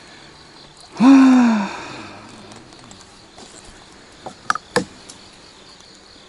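A man's short groan about a second in, rising then falling in pitch, followed near the middle by a few light clicks, over faint insect chirring.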